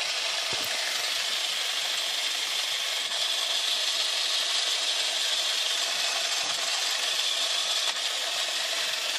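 Small Lego Technic electric motor running flat out, driving a four-wheel-drive gearbox and big tyres with a steady whirring buzz of gears.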